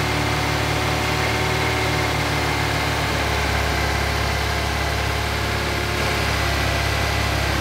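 Mazda Miata 1.6-litre four-cylinder engine idling steadily with the diagnostic box's TEN terminal grounded, the state used for setting base ignition timing. Its low hum grows stronger about three seconds in.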